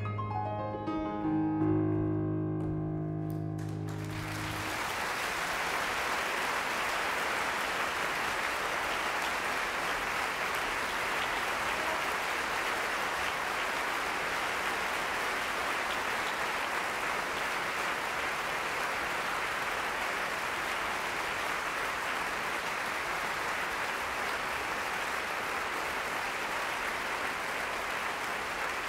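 A grand piano's closing notes ring and fade out over the first four seconds or so, then audience applause takes over and goes on steadily.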